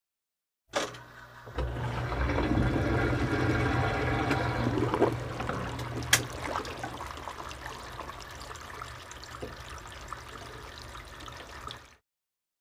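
Running, splashing water with a steady low rumble underneath, loudest in the first few seconds and easing off later, with a single sharp click about six seconds in; it cuts off near the end.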